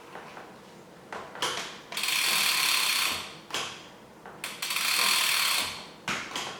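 Bicycle drivetrain turned over by hand on the workstand: the chain and rear freehub run in two whirring, ratcheting spins of about a second each, with a few clicks between them, as the rear gear indexing is checked.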